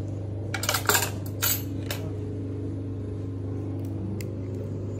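A metal spoon scraping and clicking against a plastic yogurt cup as yogurt is scooped out: a few short scrapes in the first two seconds and one faint click near the end, over a steady low hum.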